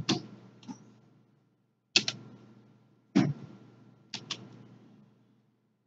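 About six sharp computer mouse clicks at irregular intervals, a couple in quick pairs, over a faint steady electrical hum.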